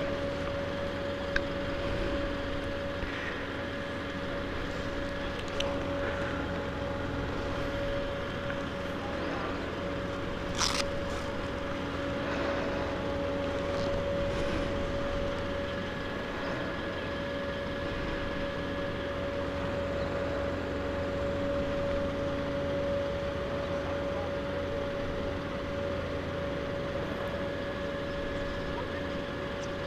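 2008 Honda CBR1000RR's inline-four engine running at a steady cruise, its note held at one pitch, under a low rush of wind on the microphone; a brief sharp tick about ten and a half seconds in.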